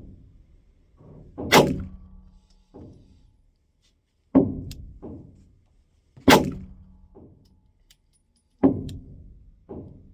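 Four slow, deliberate shots from a 9mm Glock 45 pistol firing 147-grain hand-loaded full-metal-jacket rounds, two to three seconds apart, with fainter knocks in between.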